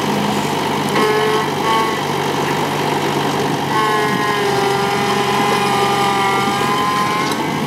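New Holland compact tractor's diesel engine running steadily as it drives. Twice a drawn-out high tone sounds over it, short about a second in, then longer from about four seconds in, sagging slightly in pitch.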